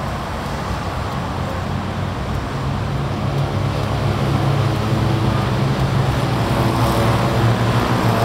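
Steady road traffic passing on a busy street, with a bus engine growing louder through the second half as it goes by.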